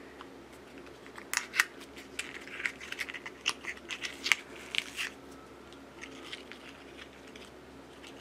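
Crinkling and clicking of small toy accessories and their paper packaging being handled, a run of sharp clicks and rustles from about one to five seconds in, over a faint steady hum.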